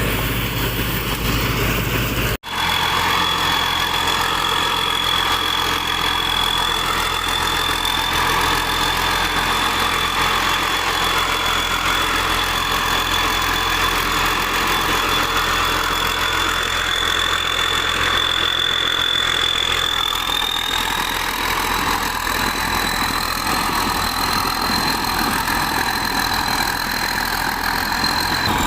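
Heavy machinery engine running steadily, with a thin high whine that steps up slightly in pitch about twenty seconds in. A very brief break cuts the sound about two seconds in.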